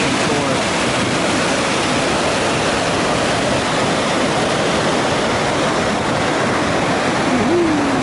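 Mountain river's whitewater rushing between boulders: a loud, steady, unbroken rush.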